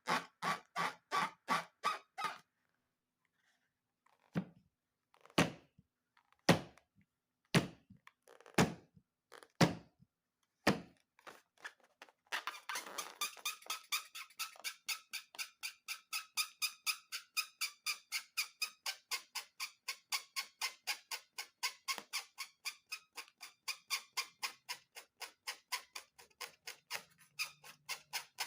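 Regular sharp clicking, about three a second, stops briefly. Seven louder single clicks follow about a second apart, then a fast steady ticking of about three to four a second takes over near the middle and runs on.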